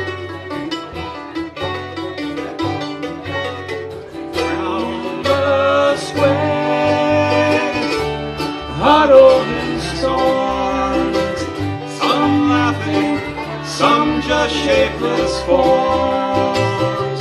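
Live acoustic bluegrass band playing: banjo, mandolin and acoustic guitar picking over a plucked upright bass. About four seconds in, the music gets louder as a fiddle lead with sliding notes comes in over the rhythm.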